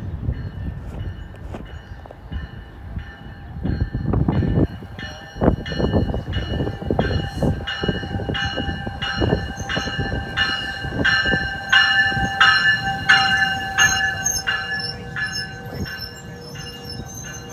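NJ Transit multilevel commuter train pulling slowly into a station: low rumble and wheel knocks. A bell rings steadily about twice a second, starting about five seconds in and growing louder as the cab car draws near, over a thin steady squeal.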